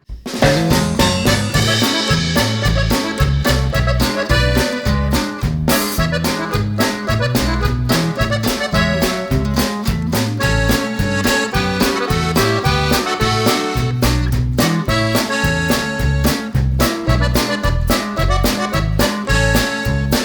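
Background music: an upbeat instrumental with a steady rhythmic bass beat and an accordion-like lead, starting suddenly.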